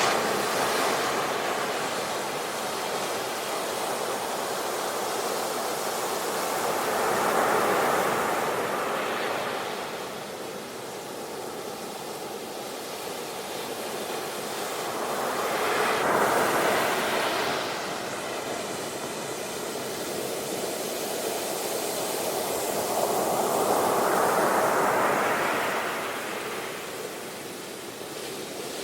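Ocean waves breaking on a shore, a steady wash of surf that swells and falls back about every eight seconds, four swells in all.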